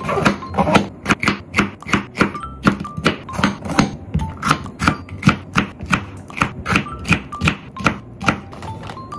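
Kitchen knife slicing green peppers on a wooden cutting board, an even run of sharp cuts about three a second. Light background music plays under it.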